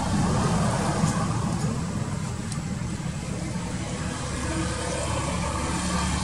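Steady low rumble with no clear pitch, easing slightly about two-thirds of the way through.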